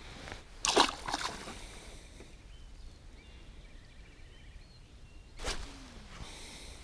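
Water splashing in short loud bursts about a second in, then faint sloshing. Another brief splash or knock comes about five and a half seconds in.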